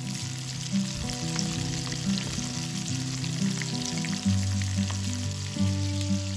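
Hot oil sizzling and crackling steadily around two batter-coated whole bluegill frying in a cast-iron skillet over a campfire. Low background music notes play underneath.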